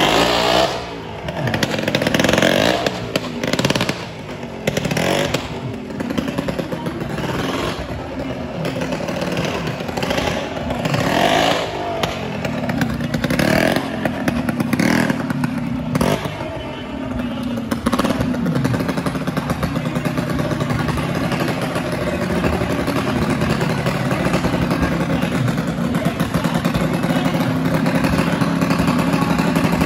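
Motorcycle engines in a well-of-death show being revved again and again, rising and falling. After about 18 seconds they settle into a steadier running note.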